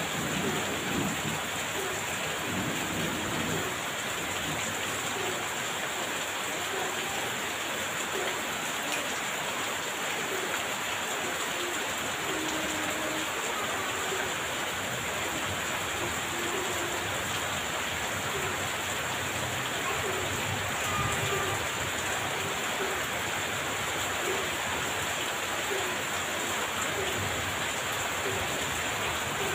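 Heavy rain falling steadily, with faint low rumbles of thunder near the start and again about two-thirds through.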